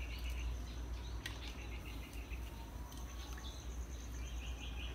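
Faint outdoor ambience: insects chirping, with a steady high pulsing trill and short rapid chirp trains at the start and again near the end, over a steady low rumble.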